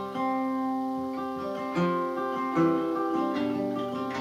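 Acoustic guitar playing between sung lines of a country-style song, chords ringing with new notes picked every second or so.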